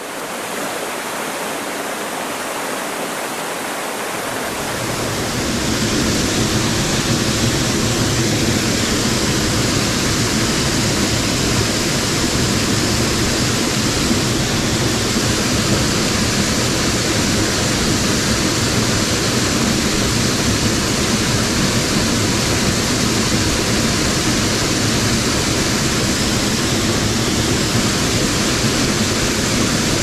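Steady rush of a waterfall at the head of a mountain stream, loud. It grows louder between about four and six seconds in, then holds steady.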